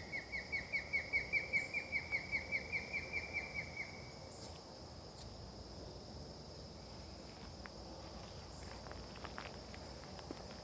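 A run of short repeated call notes, about four or five a second, each dipping slightly in pitch and fading away after about four seconds, over a steady high insect drone. Soft scattered clicks like footsteps come in the second half.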